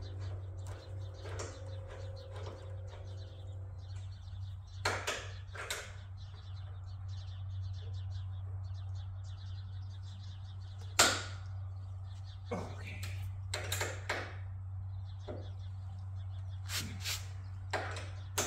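Scattered metallic clicks and knocks as a bench vise is bolted down to a steel welding table, the loudest a sharp knock about eleven seconds in, over a steady low hum.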